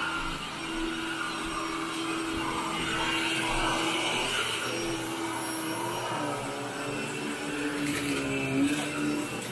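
Upright carpet vacuum cleaner running on carpet, its motor hum steady and then dipping a little in pitch partway through, with a short bump near the end.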